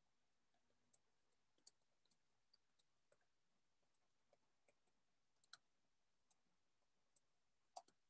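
Near silence with faint, irregular small clicks, about fifteen of them, the loudest near the end.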